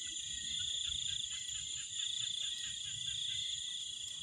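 A night chorus of crickets and other insects: a steady, high-pitched trilling. A faint quick ticking runs for a second or so about a second in.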